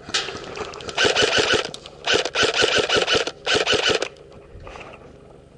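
Airsoft rifle firing on full auto, in several short bursts of rapid, evenly spaced shots with a mechanism whine over them, the longest burst close to a second, stopping after about four seconds.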